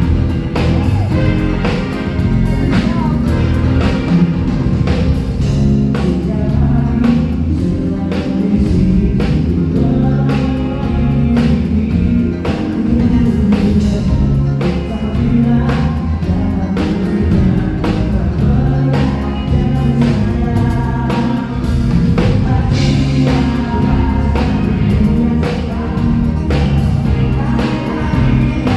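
Live band playing a song at a sound check, a singer's voice over a drum kit keeping a steady beat with bass and other instruments.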